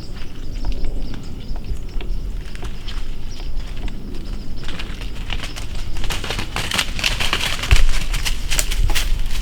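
Dry leaves crackling and rustling in many small clicks, growing much denser about five seconds in, over a low steady rumble.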